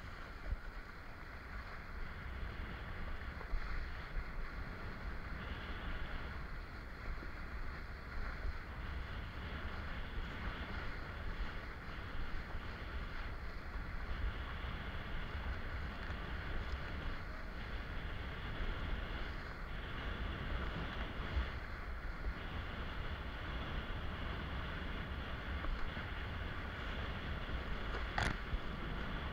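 Wind buffeting an action camera's microphone over water rushing and splashing under a kiteboard riding across the sea. A single sharp knock near the end.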